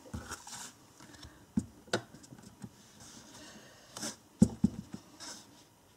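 Hand stamping with a clear acrylic stamp block on card stock: a few light taps and soft rustles, then a sharper knock and a quick run of taps about four and a half seconds in as the block is pressed onto the card.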